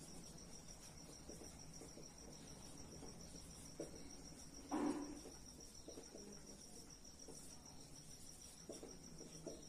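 Faint scratching and tapping of a marker writing on a whiteboard, with one brief louder knock or sound about five seconds in. A steady, faint, high-pitched pulsing trill runs underneath.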